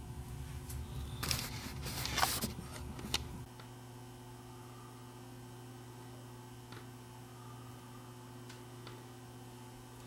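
Steady electrical mains hum, with a short spell of crackling and clicking handling noises in the first few seconds. A low rumble cuts off about three and a half seconds in.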